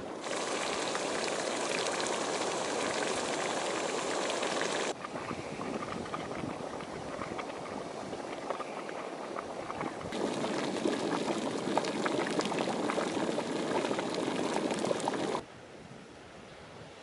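Geothermal hot spring and mud pools boiling, a steady bubbling and spluttering. The sound changes abruptly at cuts: louder for the first five seconds, softer, then louder again about ten seconds in, and dropping to a faint hiss near the end.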